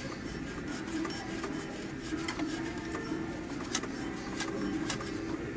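A few sharp metal clicks and ticks, spaced a second or so apart, the loudest in the middle, as the fan clutch is turned by hand onto the water pump pulley hub of a Ford 4.0 SOHC engine. A steady low hum runs underneath.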